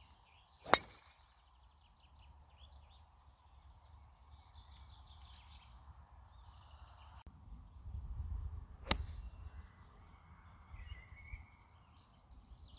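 A golf club striking the ball on a tee shot, one sharp crack about a second in, then a second sharp strike, an iron shot off the fairway, about nine seconds in. Birds chirp faintly and wind rumbles on the microphone between the shots.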